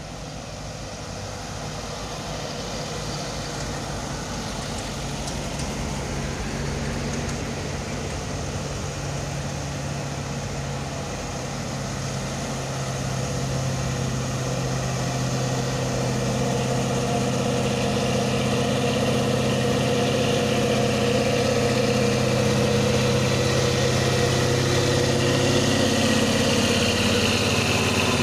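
Heavy diesel truck engine labouring uphill in a low gear, a steady low drone at nearly constant pitch that grows steadily louder as a loaded multi-axle dump truck climbs toward and passes close by.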